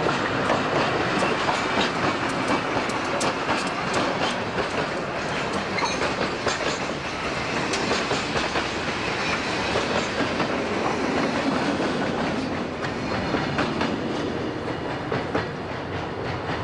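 An EMD SW8 diesel switcher locomotive passing close by with its engine running, followed by a train of covered hopper cars rolling past, wheels clacking steadily on the rails.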